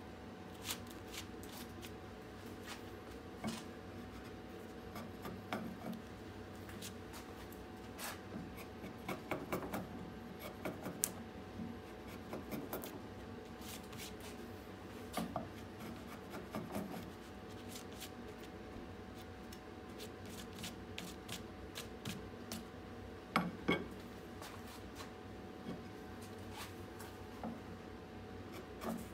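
Rustling and scraping of a gloved hand and wood shavings in the hollow of a half-carved birch bowl, with irregular light clicks and a few sharper knocks as the wood and tools are handled. A faint steady hum runs underneath.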